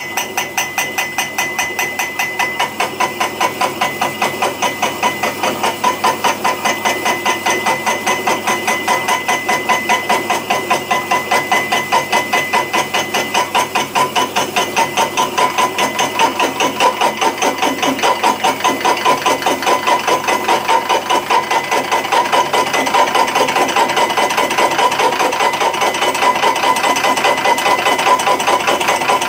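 Boring head in a lathe spindle cutting out the worn bearing bore of a Landini 6550 tractor steering arm, with a steady rhythmic knocking from the cutter. A thin steady whine fades out about halfway through.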